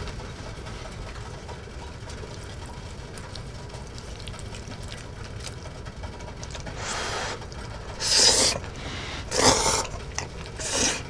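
A person slurping jjajangmyeon noodles: four short slurps about a second apart, the first softer.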